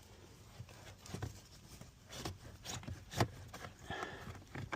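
Faint plastic clicks, rubbing and rustling as the cabin air filter is worked down and out of its housing, with scattered small knocks, the loudest about three seconds in.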